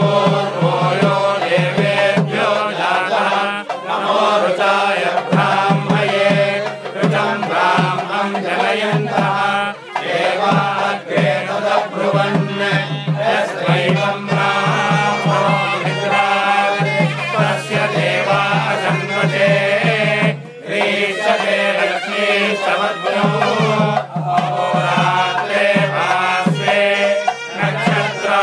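Hindu priests chanting mantras in a steady, rhythmic recitation, pausing briefly twice for breath.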